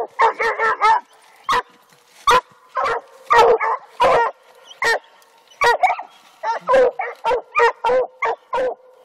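Coonhounds barking treed at the base of a tree, a sign that they have a raccoon up it. The barks come short and loud, a quick run in the first second and then about one or two a second.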